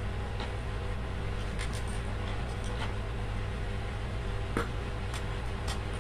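Scattered small clicks and taps as a plastic wall socket and its copper wires are handled and fitted, over a steady low hum; the sharpest click comes about four and a half seconds in.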